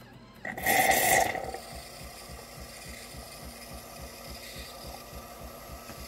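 Terra Kaffe TK-02 super-automatic espresso machine starting the milk stage of a latte: a short loud hissing burst about half a second in, then a steady low pulsing about five times a second as the machine draws milk through its hose and froths it into the cup.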